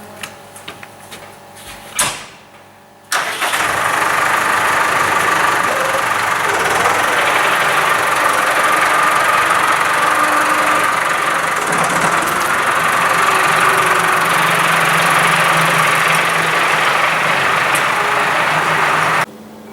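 Old McCormick tractor's engine running loud and steady, cutting in abruptly about three seconds in after a few clicks and a knock, and cutting off sharply just before the end.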